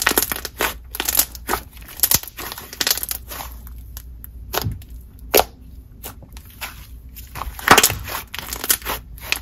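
Purple jelly-icy hybrid slime being squished, pressed flat and stretched by hand, giving irregular sharp crackles and bubble pops.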